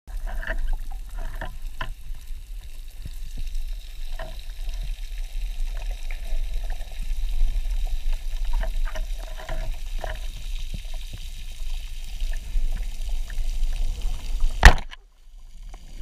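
Underwater ambience heard through a camera housing: a steady low rumble with scattered small clicks and crackles. Near the end a band-powered speargun fires once with a single sharp crack, the loudest sound here.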